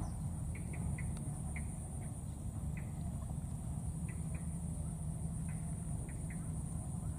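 Short, high animal chirps every half second or so over a steady low rumble outdoors, with a faint steady high whine.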